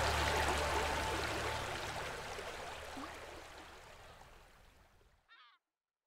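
Shallow stream water rushing over stones, fading out steadily until it is gone about five seconds in, with soft held music notes beneath it that die away in the first second or so. Just after it falls silent comes a single short call.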